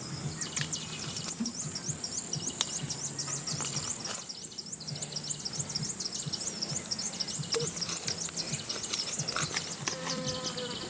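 Outdoor rural ambience: a steady high insect drone with a fast run of short repeated high chirps over the first half or so, and a few scattered knocks.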